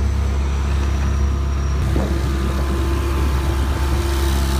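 Speedboat's motor running steadily under way, a loud continuous low drone with water rushing past the hull.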